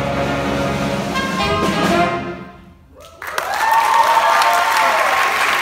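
A big band of saxophones, trumpets and trombones holds a final chord that dies away, the end of a piece. About halfway through, the audience breaks into applause and cheering.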